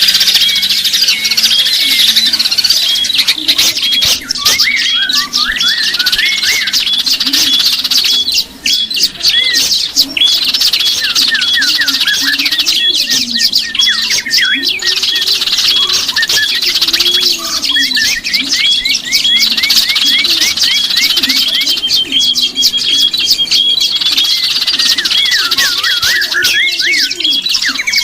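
Bird-lure recording of many small songbirds chirping and calling at once: a dense, continuous chorus of rapid high notes and short repeated chirps, with lower wavering notes underneath.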